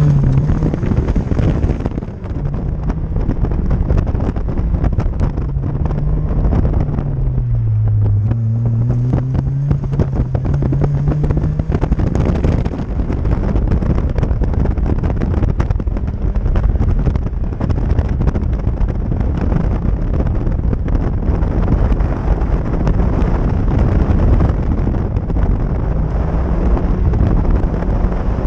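1986 Toyota Corolla GT-S's twin-cam four-cylinder engine running hard under load, its pitch dipping about eight seconds in and climbing again. Heavy wind buffeting on the microphone rises over the engine from about twelve seconds in.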